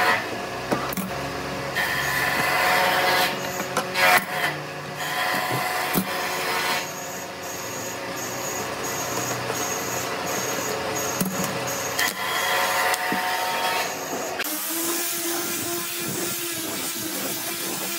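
Steady mechanical hum with scattered knocks and clicks as steel C-clamps are handled and tightened on a bent laminated wooden ring. About fourteen seconds in it changes to a handheld angle grinder fitted with a sanding pad, running steadily as it sands the wood.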